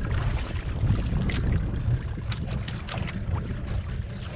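Steady wind rumble on the microphone and sea water moving around a small outrigger fishing boat, with a few short sharp knocks.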